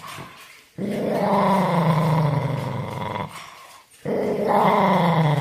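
Dog growling: two long, low growls with a short pause between them.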